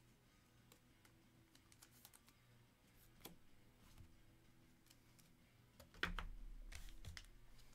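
Faint, scattered clicks and taps of trading cards being handled and laid down on stacks on a table, with a louder bump and rustle about six seconds in.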